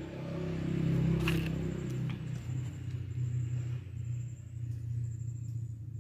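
Engine of a motor vehicle running, a low rumble that swells in the first second, holds, and starts to fade near the end. Two short clicks sound over it about one and two seconds in.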